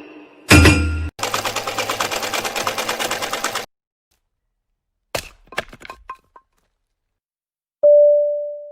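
A run of separate sound effects. First a sharp hit with a ringing tone, then a rapid, even clatter of about a dozen strokes a second, like automatic gunfire, for about two and a half seconds. After a pause come a few scattered cracks, and near the end a single steady electronic beep that slowly fades.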